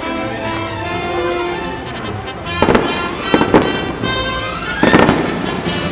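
Fireworks exploding: a run of sharp bangs about two and a half to three and a half seconds in, and another couple near the end, over music playing throughout.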